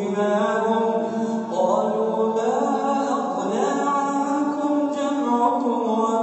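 Melodic Quran recitation by a single voice, drawn-out sung notes that glide in pitch, with one rising phrase about a couple of seconds in.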